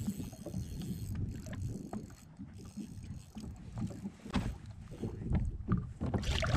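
Wind buffeting the microphone and water lapping against a small boat, with scattered small splashes and knocks. The splashing grows busier near the end as the hooked trout thrashes at the surface beside the landing net.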